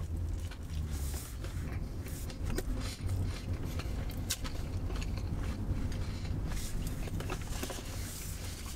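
Chewing with small mouth clicks and lip smacks over a steady low rumble in a car cabin.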